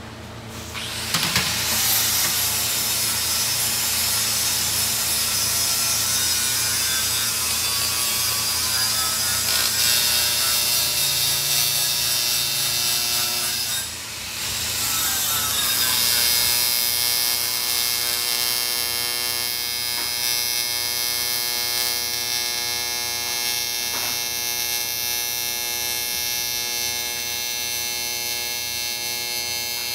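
A small electric power tool running steadily with a motor whine and a hiss. It drops off for a moment about halfway, then spins back up and keeps running.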